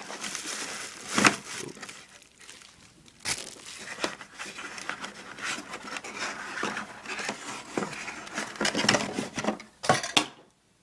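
Plastic packaging crinkling and rustling as a camcorder is unwrapped from its box, with sharper handling knocks about a second in and again near the end.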